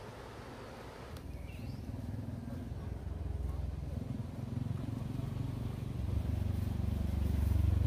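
Small engine running, getting steadily louder.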